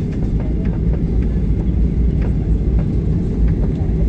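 Cabin noise inside a jet airliner taxiing: the engines and rolling undercarriage make a steady low rumble, with a few faint light clicks.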